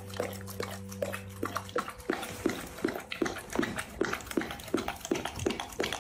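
A starved, emaciated dog eating wet food from a bowl, with regular wet chewing and smacking sounds a little under three times a second. Soft background music fades out about two seconds in.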